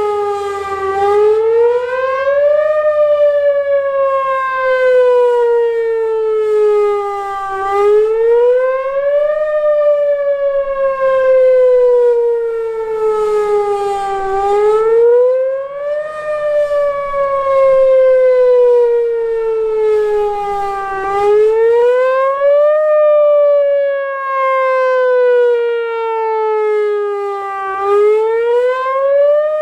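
Whelen Vortex outdoor warning siren sounding during its weekly test. It is a loud, rising-and-falling wail: the pitch climbs quickly, then slides slowly back down, about every six and a half seconds, five climbs in all.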